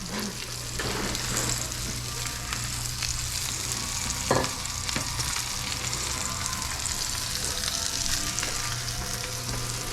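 Tomahawk roast (bone-in beef rib) searing in hot oil in a pan, a steady sizzle with a few light clicks and a low steady hum underneath.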